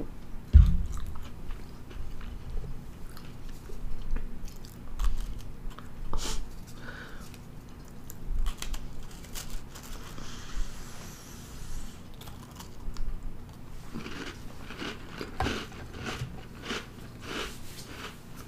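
Close-up mouth sounds of a person biting and chewing a Pillsbury Cinnamon Toast Crunch cookie, with many small sharp clicks from the chewing. There is a single low thump about half a second in.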